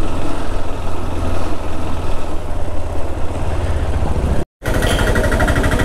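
Motorcycle engine running at low speed while riding, a steady low drone. About four and a half seconds in the sound cuts out for an instant and returns with a more pulsing engine note.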